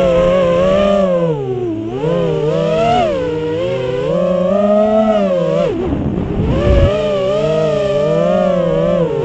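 A six-inch FPV quadcopter's brushless motors (Emax ECO II 2207 1900KV) and three-blade propellers whining. The pitch rises and falls with the throttle, with two brief drops in pitch, about two seconds in and again about six seconds in, where the throttle is chopped.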